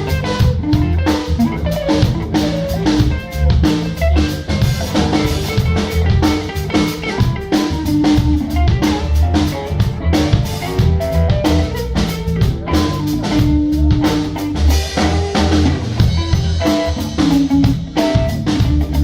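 Band music: guitar playing over a drum kit with a steady beat and bass.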